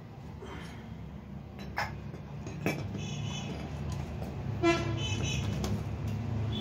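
A steady low hum with a few sharp clinks, and a short horn-like toot about five seconds in.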